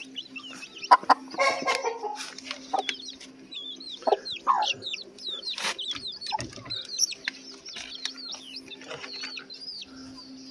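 A hen clucking and chicks peeping in many quick, high chirps as they feed, with several sharp knocks in between.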